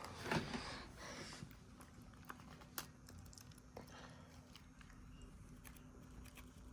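Soft chewing and scattered small clicks of people eating MRE spaghetti, faint and mostly in the first second or so.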